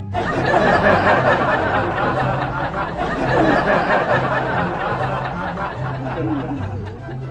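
Canned laughter from many people over background music with a stepping bass line.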